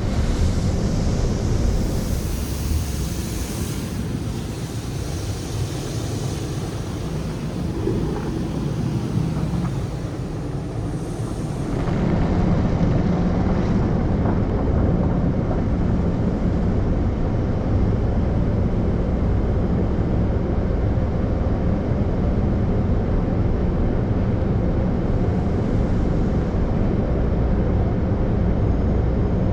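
Automated tunnel car wash equipment running: a steady rushing noise with a low rumble that grows louder and heavier about twelve seconds in.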